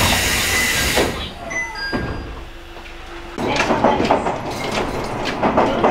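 A burst of compressed-air hiss from an electric train car's door engines, ending about a second in, followed by a few knocks as the sliding doors work at a station stop. About three and a half seconds in, the rattle and clicking of the train running on the track takes over.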